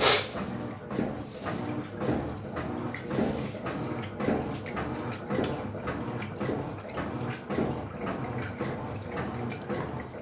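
Electrolux LF75 top-loading washing machine washing a load: the agitator motor hums and the water sloshes in a regular back-and-forth rhythm, with a sharp splash at the very start.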